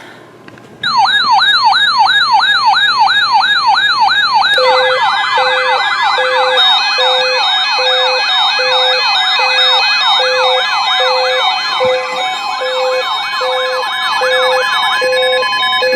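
Weather radio receivers' electronic alert sirens going off for a severe thunderstorm warning. A siren sweeps up and down about three times a second, starting about a second in. About five seconds in, a second overlapping siren and a steady on-off beep about once a second join it.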